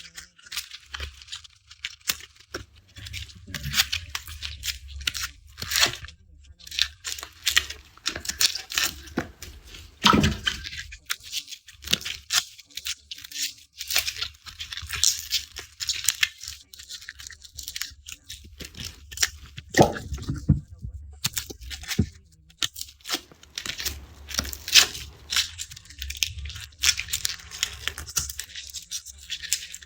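Dry garlic skins being peeled off the cloves by hand: crisp, papery crackling and tearing in irregular runs, with a couple of dull knocks.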